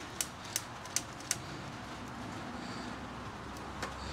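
A handheld utility lighter clicking as its trigger is pulled to light gel fire starter under lump charcoal: four sharp clicks in quick succession in the first second and a half, then a fainter click near the end.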